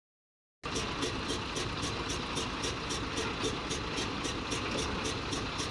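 Silence for about half a second, then a heavy diesel engine running steadily at idle. A regular light ticking repeats at an even pace over the engine.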